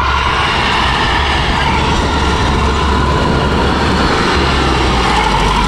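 Diesel engine of a SKOT eight-wheeled armoured carrier, an air-cooled Tatra V8, running hard under load as the vehicle drives through mud, giving a loud, steady rumble.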